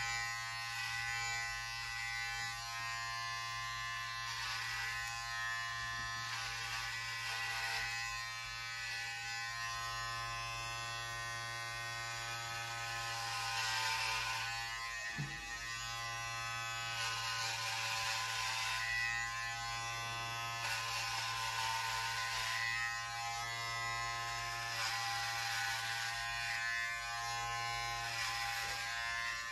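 Electric hair clippers buzzing steadily while shaving long hair down to a buzz cut. A hiss swells and fades every few seconds as the blades pass through the hair.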